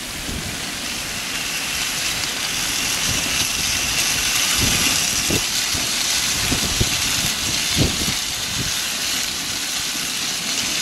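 Seasoned potatoes sizzling steadily on the hot cast-iron plate of a preheated gas grill, with a few soft knocks about halfway through as they are moved around.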